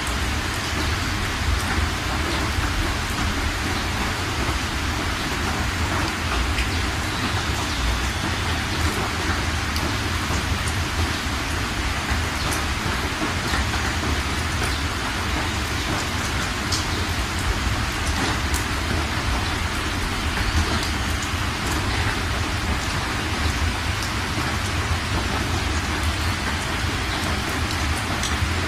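Steady rain falling onto standing floodwater and nearby surfaces, with scattered sharp drip ticks and a steady low rumble underneath.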